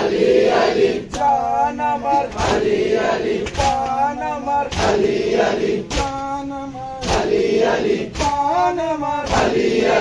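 A group of men chanting a Bengali noha, a Muharram lament, in a lead voice alternating with the chorus. A rhythmic matam chest-beat thump lands about once a second.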